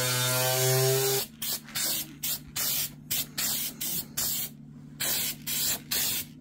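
Corded angle grinder running steadily with a motor whine for about the first second, then stopping. After it, an aerosol can of weld-through primer hisses in short repeated bursts, about two a second, with a faint low hum underneath.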